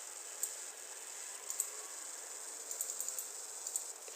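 Steady faint microphone hiss with a few faint, scattered short clicks from working at the computer.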